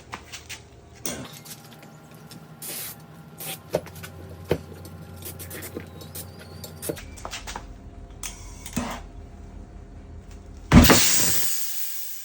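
A few short aerosol sprays and clicks, then, about eleven seconds in, a sudden loud whoosh that fades away over a second or so. This is the golf cart tire's bead being blown onto the rim and sealing.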